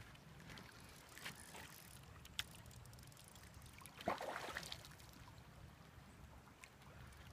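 A hooked salmon splashing once at the river's surface about four seconds in, over a faint steady low rumble.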